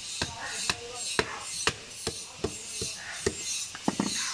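A large pangas fish being chopped on a fish-cutting blade set in a wooden block: sharp knocks of blade and fish on wood, about two a second, with three quick ones near the end, over a steady hiss.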